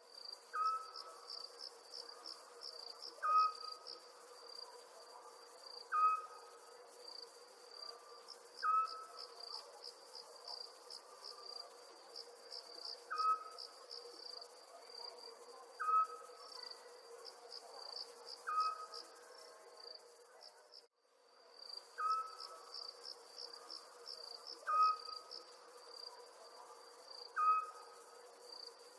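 Night-time crickets chirping in a steady, fast-pulsing trill. A short, lower call repeats about every two and a half seconds over it and is the loudest sound. All sound cuts out briefly about 21 seconds in, then the same pattern resumes.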